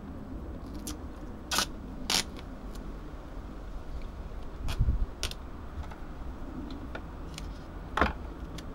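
Duct tape being pulled off its roll and handled: about five short rips and clicks, with a soft thump near the middle, over a low steady rumble.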